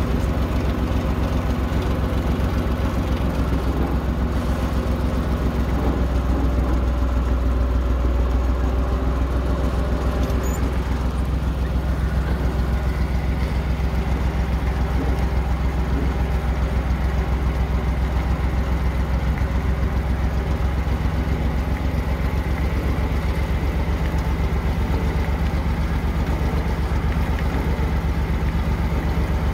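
Farm tractor engine running steadily at a low, even pace while towing a flatbed wagon loaded with a heavy stationary steam engine, heard close from the tractor.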